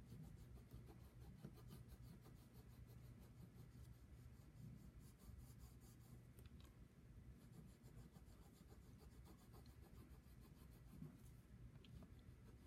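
Faint scratching of pink colour being rubbed back and forth over paper in quick shading strokes, blending the colouring of a drawing.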